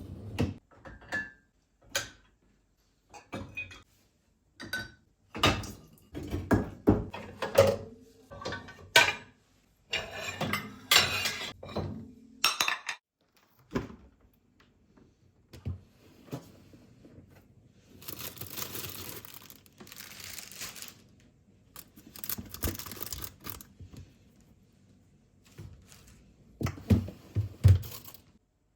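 Kitchen work: a run of thunks, knocks and clatter of dishes and utensils being handled and set down, with two spells of steady rushing noise about two-thirds through and a few sharp knocks near the end.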